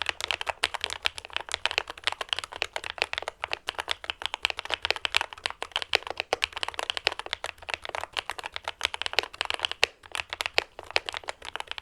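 Modded Langtu GK65 mechanical keyboard being typed on fast: a dense, continuous run of key strokes, many per second.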